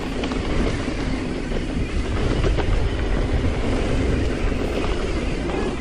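Mountain bike rolling fast down a dry dirt and gravel trail: continuous tyre rumble on the loose surface, with the bike rattling and clicking over small rocks.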